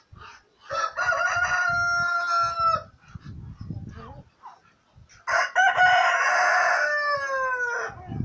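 Rooster crowing twice, each crow about two seconds long, the second dropping in pitch as it ends.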